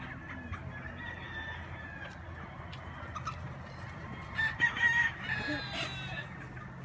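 Roosters crowing in a flock of free-range chickens: a faint, distant crow about a second in, then a loud crow about four and a half seconds in.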